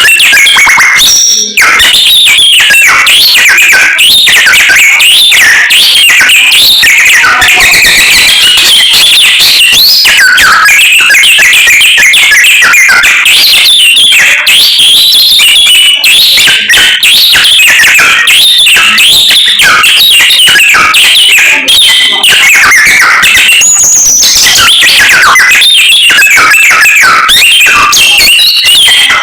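Samyong songbird singing nonstop, a loud, varied run of whistled phrases that hardly pauses.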